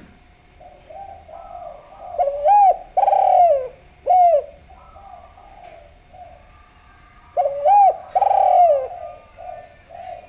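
Spotted dove (derkuku) cooing. Two loud phrases of swooping, rise-and-fall coos come about two seconds in and again about seven seconds in, with softer coos running under and between them.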